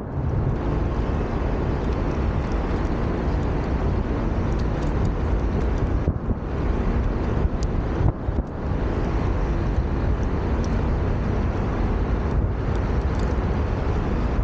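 Steady rushing noise of a Onewheel Pint rolling at speed on asphalt: the Craft & Ride Burris tyre on the pavement together with wind on the microphone, dipping briefly a couple of times about halfway through.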